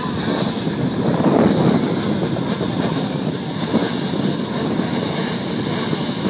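A pack of racing go-karts' engines droning together as the field approaches, with wind buffeting the microphone.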